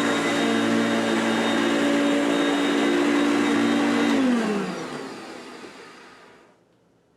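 Hoover Concept One U4219 upright vacuum running steadily on its freshly replaced motor and brush roll bearings. About four seconds in, it shuts off, and the motor winds down with falling pitch over about two seconds to near silence.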